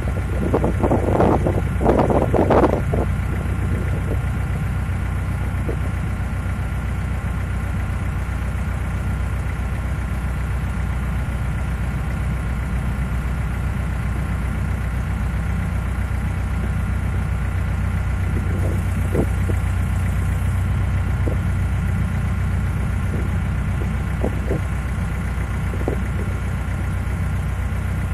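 Narrowboat's diesel engine running steadily under way, an even low thrum. A few short, louder sounds come in the first three seconds.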